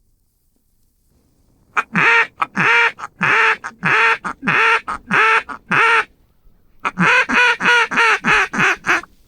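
Mallard duck call blown in two runs of loud quacks: about ten evenly spaced quacks starting about two seconds in, then after a short pause a quicker run of about as many.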